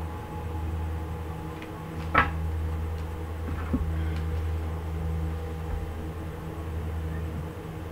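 A steady low electrical hum, with two brief light clicks about two seconds and nearly four seconds in, as oracle cards are handled on a table.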